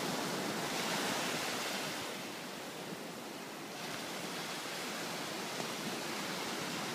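Small ocean waves breaking and washing up a sandy beach: a steady hiss of surf that eases a little about two seconds in and builds again near four seconds.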